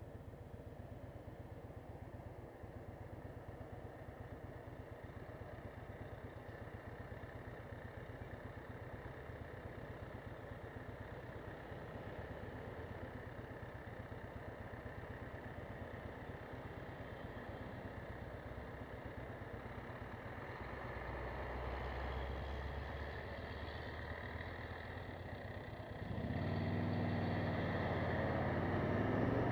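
Motorcycle engine running while riding, with steady road and wind noise. It grows louder toward the end, stepping up suddenly about three-quarters of the way through as the engine pitch rises and falls.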